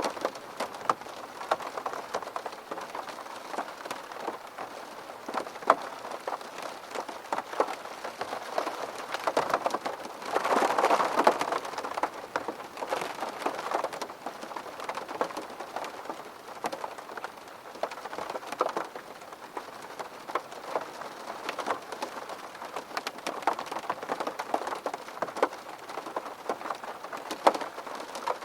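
Steady rain falling on a surface, with many sharp individual drops tapping. It grows heavier for a couple of seconds about ten seconds in.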